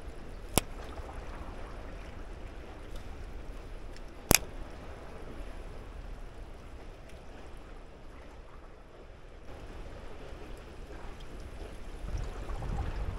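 Seawater lapping and trickling against the concrete breakwater blocks, with two sharp clicks about half a second and four seconds in. Wind rumbles on the microphone near the end.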